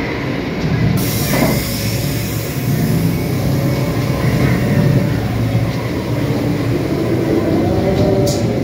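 Ghost train ride car rumbling steadily along its track through the tunnel. A high hiss starts suddenly about a second in and carries on, and a short hiss comes near the end.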